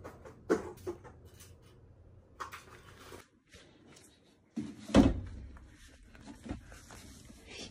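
A few light knocks and clicks over quiet room noise, with one louder dull thud about five seconds in.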